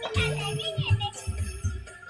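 Dance remix of bantengan music: a repeating deep bass beat under a wavering melody, with bells jingling throughout.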